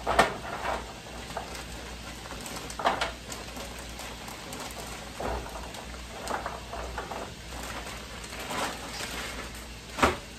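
Plastic food packaging bag crinkling and rustling in irregular bursts as it is handled, loudest just after the start and near the end.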